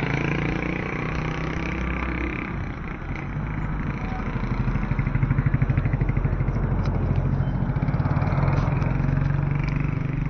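Small motorcycle engine running steadily at road speed, with a fast even throb that grows louder around the middle, over wind and road rush.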